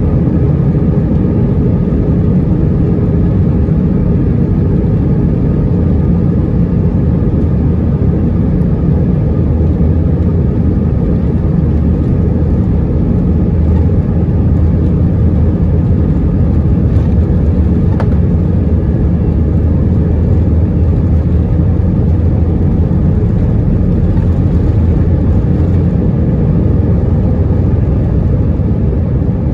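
Cabin noise of an Airbus A320-212 at takeoff power during takeoff and initial climb: a loud, steady rumble of the engines and airflow, deepest in the low range and unchanging.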